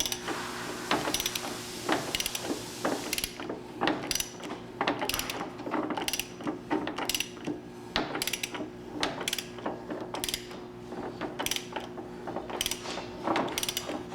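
Shop machinery running with a steady low hum and an irregular mechanical clicking and clattering, about two or three clicks a second, with a brief hiss in the first few seconds.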